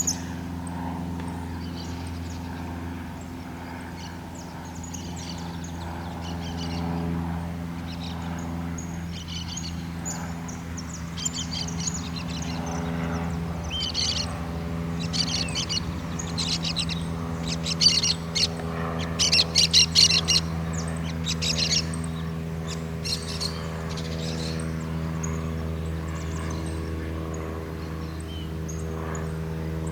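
Birds chirping in quick clusters through the middle stretch, over the steady drone of a distant light aircraft's piston engine, the Cessna 152's four-cylinder engine. The drone fills out with more tones from about halfway through.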